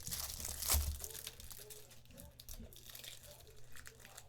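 A trading card pack's wrapper crinkling and being torn open by hand, a run of short crackles with the loudest about three-quarters of a second in.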